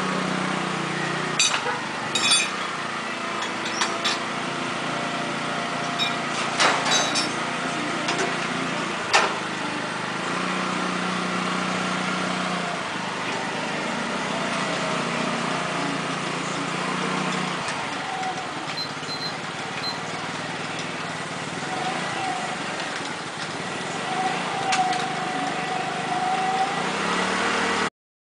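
Belt-driven rotating drum of a grain-puffing roaster running steadily over its gas burner, with a low hum, and sharp metal clinks and knocks several times in the first ten seconds.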